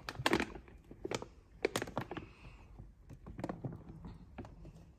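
Plastic pet-food sacks crackling and rustling under a cat's paws as it walks and shifts about on top of them, in irregular small clicks and taps.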